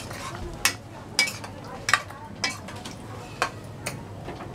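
Metal spoon stirring in a metal pressure cooker pot, with about six sharp clinks, some ringing briefly, coming unevenly about every half second.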